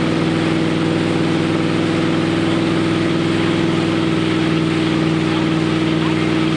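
Tow boat's engine running steadily at speed, a constant even-pitched drone.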